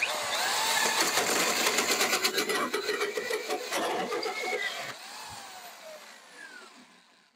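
DeWalt DWD520 corded drill in low speed driving a 4-1/4-inch hole saw into plywood. The motor comes on suddenly and runs loud and steady with the saw cutting for about five seconds. Then the sound falls in pitch and fades as the motor winds down.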